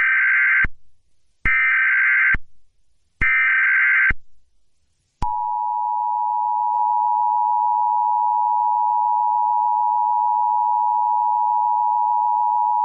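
Emergency Alert System SAME header for a Child Abduction Emergency (Amber Alert): three short bursts of screechy digital data tones, about a second and a half apart. About five seconds in comes the long, steady EAS attention signal tone.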